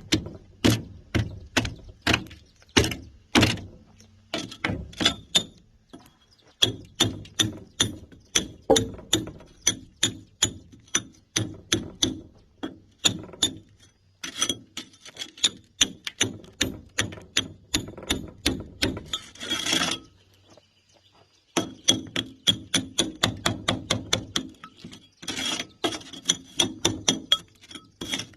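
Hammer striking a steel chisel to break concrete, in runs of about two to three sharp blows a second, each with a metallic ring, broken by short pauses. A short dense noisy burst comes about two-thirds of the way in.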